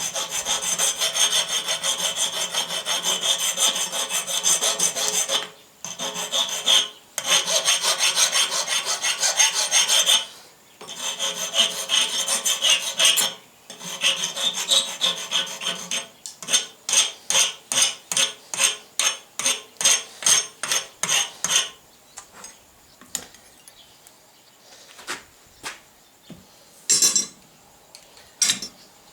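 Hand file rasping across a small forged metal arrowhead pendant: fast continuous strokes at first, then separate strokes about two a second, thinning out to a few scattered strokes near the end.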